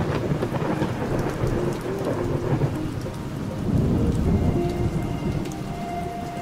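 Rain and thunder ambience: a steady hiss of heavy rain with thunder rumbling under it, swelling about four seconds in. Faint held music tones sit beneath it.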